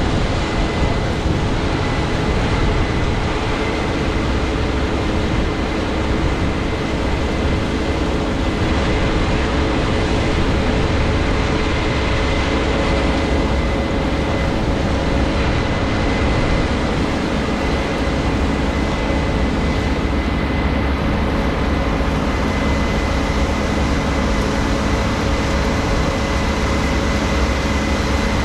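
Case IH 7230 Axial-Flow combine running steadily at close range while harvesting soybeans, the engine and threshing machinery making a constant loud drone with a steady high whine.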